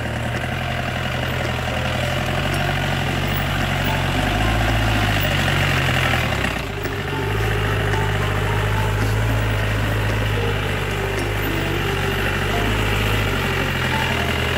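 Jeep engine running steadily as it drives slowly up a rough, muddy track, with a brief dip in level about halfway through.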